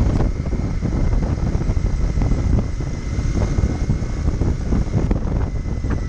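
Royal Enfield Interceptor 650's parallel-twin engine running as the motorcycle cruises along, largely buried under heavy, gusting wind buffeting on the microphone.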